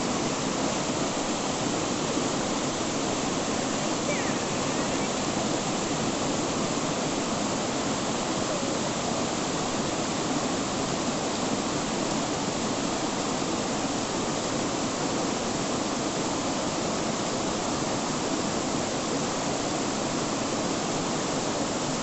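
Waterfall: falling water rushing in a steady, loud, unbroken wash of noise.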